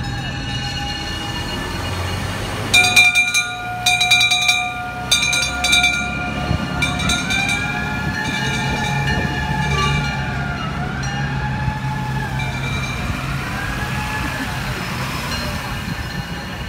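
Fire engines' bells and sirens: a run of loud clanging bell strokes about three to six seconds in, then sirens wailing, rising and falling in pitch over and over, against a steady ringing tone.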